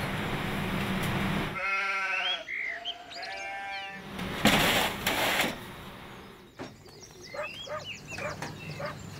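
Sheep bleating: one long, wavering bleat a little under two seconds in, then shorter calls. A steady noisy hum comes before it, and about halfway through there is a loud burst of noise lasting about a second.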